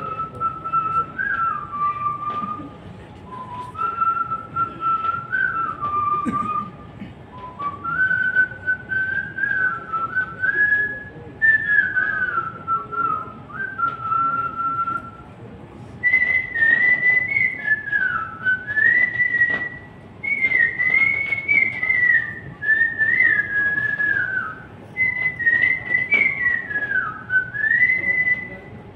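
A man whistling a song melody into a handheld microphone, in phrases separated by short breaths; about halfway through the tune moves up into a higher range.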